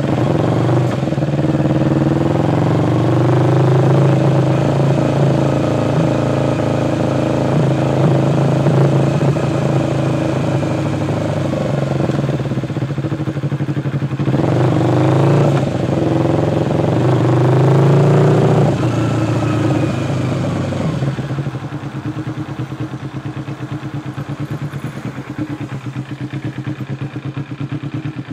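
A 2006 Kawasaki Ninja 250's parallel-twin engine running through a Muzzy exhaust with pod air filters, under way. The revs rise and fall several times and climb sharply around the middle. About three-quarters of the way through, the engine drops to a quieter, steady idle.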